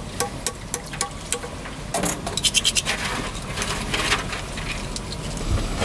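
Steel hand tools clicking and scraping on an engine cylinder head as it is stripped, with regular light clicks about four a second, then a louder burst of metallic clinking and scraping about two seconds in.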